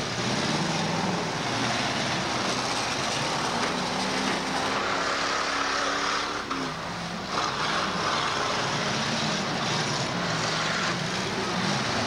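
Demolition derby car engines running and revving, their pitch rising and falling, over a steady wash of engine noise.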